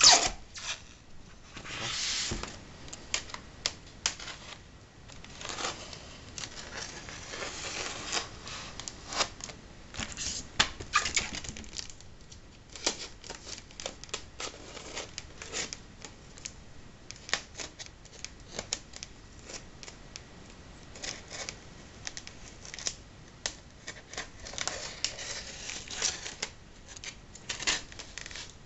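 A polystyrene foam packing box being handled and pried open by hand: foam scraping and rustling in spells, with many irregular clicks and knocks, a sharp knock right at the start being the loudest.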